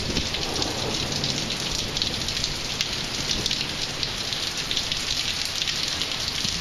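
Heavy rain falling steadily, a dense patter of drops. A low rumble of thunder fades out in the first half-second.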